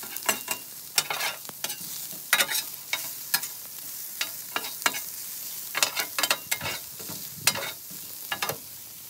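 Diced carrots, green onion and jalapeño frying with a steady sizzle on a hot 17-inch Blackstone steel griddle, while a wide steel spatula repeatedly scrapes and clacks against the griddle top as it tosses them.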